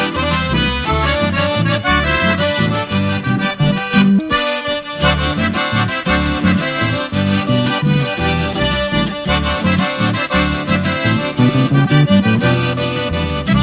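Instrumental passage of a gaúcho regional folk song, with accordion (gaita) carrying the melody over the band.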